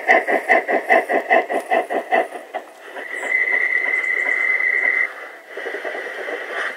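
Sound unit of a Bachmann G-scale Potter 0-4-0 saddle tank locomotive playing steam chuffs, about two and a half a second, that fade away over the first two seconds as the model runs off. About three seconds in, a steady high whistle sounds for about two seconds, followed by fainter running noise.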